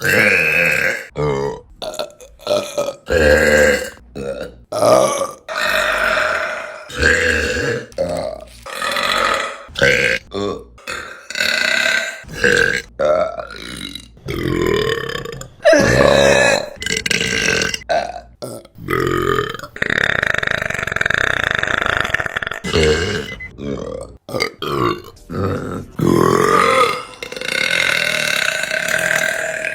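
Women burping, one burp after another in quick succession, some short and some drawn out. The longest lasts about three seconds, about two-thirds of the way through.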